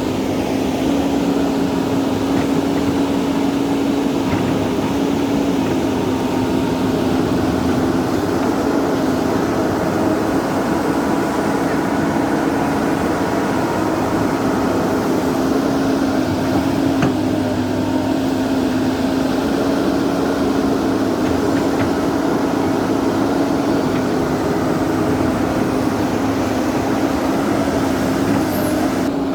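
Heavy diesel engine running at a steady speed, a constant humming drone with no breaks or revving.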